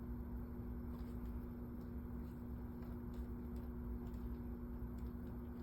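A steady low hum holding two even tones, with a few faint light clicks scattered through it. No loud joint crack stands out.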